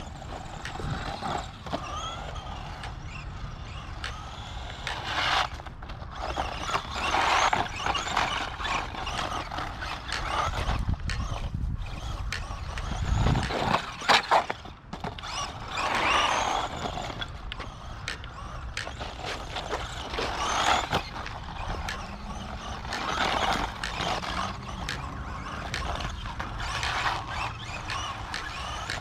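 Electric 1:16 scale RC monster truck driving, its motor and drivetrain rising and falling in repeated throttle surges as its tyres run over dirt and pavement. A loud clatter comes about 14 seconds in as the truck tumbles.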